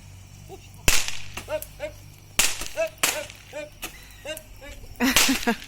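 Bonfire burning with several loud, sharp cracks of the wood popping, the loudest near the end, and short squeaky whistles between the cracks.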